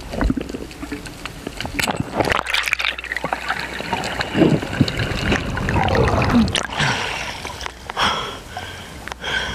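Water sloshing and gurgling around a diver's action camera, with irregular splashes and bubbling.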